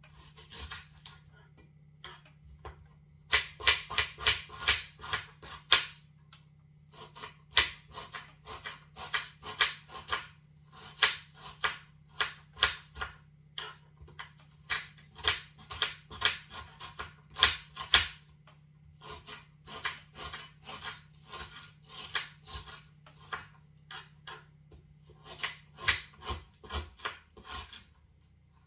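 Kitchen knife chopping an onion on a cutting board: runs of quick, sharp taps, several a second, broken by short pauses.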